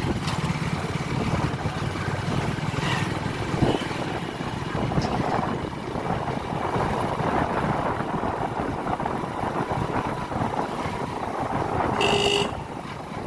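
A motorcycle being ridden along a city street: its engine runs steadily under road and wind noise, with a short horn beep about twelve seconds in.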